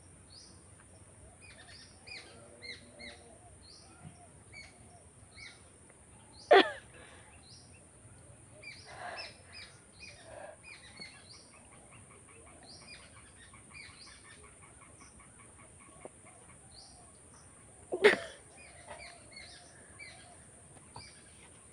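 A woman sneezing twice, suddenly and loudly, about six and a half seconds in and again near eighteen seconds, the sneezes provoked by tickling inside her nose. Small birds chirp throughout.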